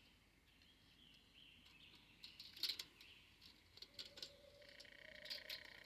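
Faint rural outdoor ambience, with scattered high chirps and clicks from small wildlife.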